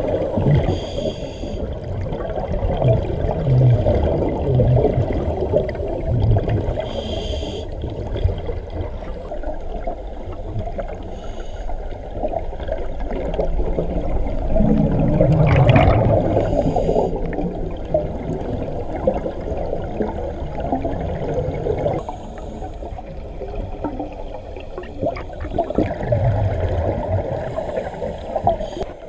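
Underwater scuba breathing heard through a camera housing: a steady low water rumble, with a burst of bubbling from a diver's regulator exhaust every several seconds. The loudest burst comes about halfway through.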